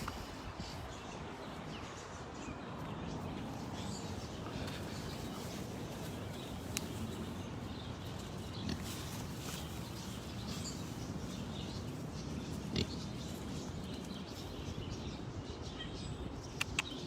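Kunekune pigs grunting and snuffling close by, with a few sharp clicks.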